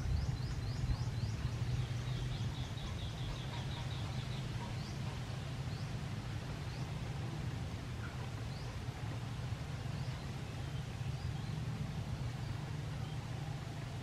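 Birds calling over a steady low rumble of background noise: a quick series of short high chirps at the start, then a fast trill, then scattered single chirps.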